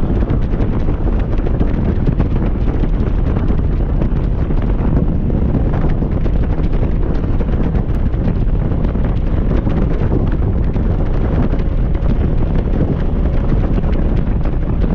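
Steady, loud wind noise on the microphone from riding a Honda motorcycle at highway speed, with a low rumble of engine and road underneath.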